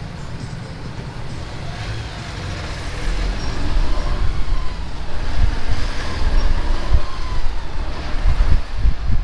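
Jeepney engine and road noise heard from a ride in traffic, with a heavy low rumble that grows louder about three seconds in.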